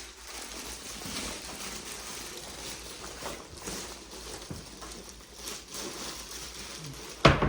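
Soft rustling and shuffling as wader fabric is handled and moved, with a few faint knocks, then a single loud thump near the end.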